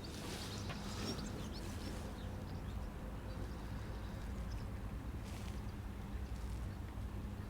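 Small boat's outboard motor running steadily under way.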